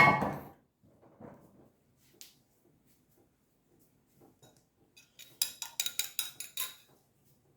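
Kitchen cookware and utensils: a single knock at the start, then a quick run of about eight sharp, ringing clinks over about a second, like metal tapping against a dish.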